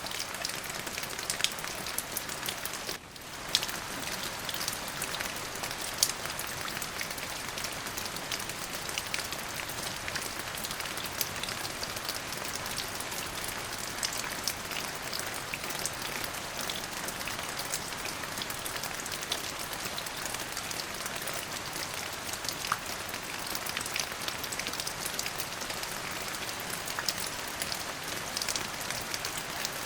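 Steady rain falling, with many separate drops ticking on a hard surface over the hiss. The sound dips briefly about three seconds in.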